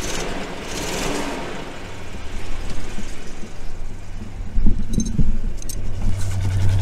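A 1992 Itasca Spirit motorhome's engine running at idle right after starting on its reinstalled battery, a steady low hum that grows louder near the end, with a few brief clicks about five seconds in.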